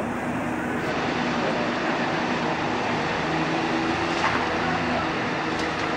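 Cat 325D excavator's diesel engine running steadily as it works over a tipper truck, its engine note strengthening about halfway through, with a few faint knocks near the end.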